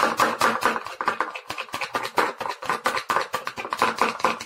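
Rapid scraping and knocking of a utensil stirring glue and food colouring in a bowl, several strokes a second.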